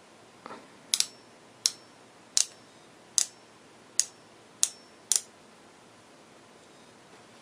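Seven sharp clicks about two-thirds of a second apart, two of them close together, with a soft rustle just before the first.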